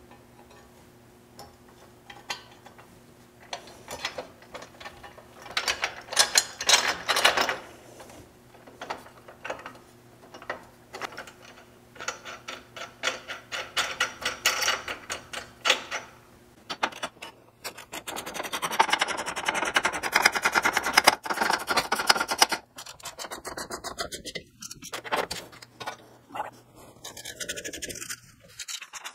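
Hand socket ratchet clicking fast as nuts are run down onto half-inch bolts, drawing a steel frame patch plate tight against a truck frame. Short bursts of ratcheting in the first half, then a longer, steadier run through the second half.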